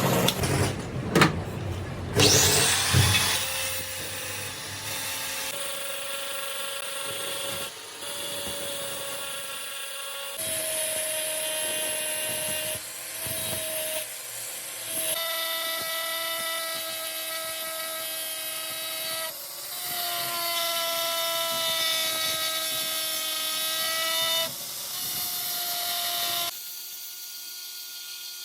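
A metalworking power tool running with a steady whine, stopping and starting in several stretches, with a few loud knocks in the first three seconds.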